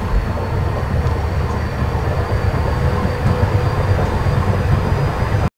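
Sound-design soundtrack of a dense, low rumbling noise with faint steady high tones running through it; it cuts off suddenly near the end.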